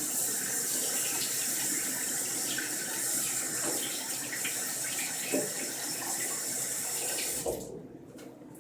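Water tap running into a sink while hands are washed under it; the tap is shut off about seven and a half seconds in.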